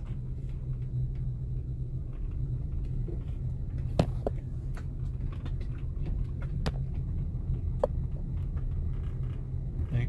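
Car cabin noise while driving slowly: a steady low engine and road rumble, with a few sharp clicks, the loudest about four seconds in.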